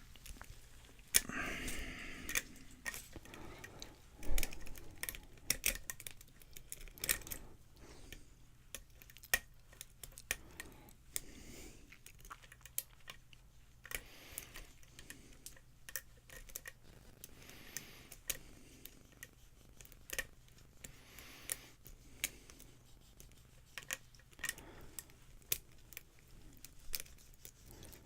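Lock pick and tension wrench working the pin stack of a Cisa Locking Line padlock: irregular small metallic clicks, taps and scrapes of pins being lifted and set, with a few louder knocks of handling.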